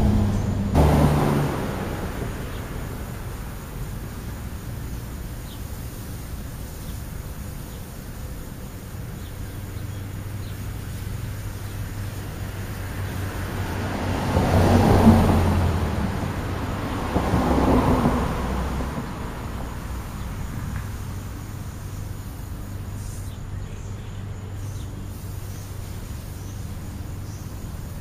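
Road traffic: a steady low hum, with two vehicles passing about halfway through, each swelling and then fading.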